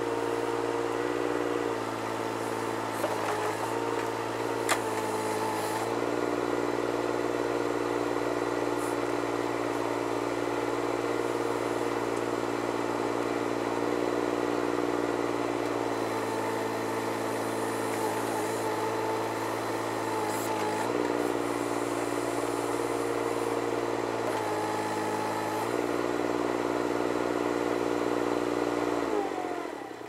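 Terex TC16 mini excavator's diesel engine running steadily, its note dipping briefly every few seconds as the boom, arm and bucket are moved under hydraulic load, with a faint whine that comes and goes. Near the end the engine note sags and falls away.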